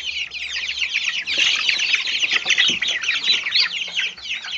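A brood of Silkie chicks, about three weeks old, peeping together in a dense, continuous chorus of many overlapping high, falling cheeps.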